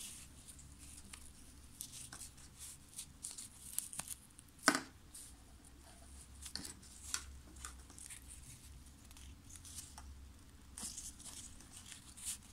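Satin ribbon rustling and crinkling as fingers fold and press it around a plastic headband, with scattered small clicks and one sharper click a little under five seconds in.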